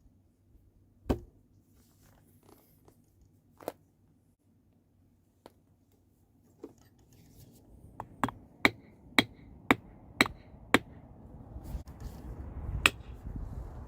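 Sharp hand-tool strikes on a hard surface: a few scattered knocks, then a quick run of about six strikes at roughly two a second, and one last loud strike near the end. A rustling handling noise rises beneath them toward the end.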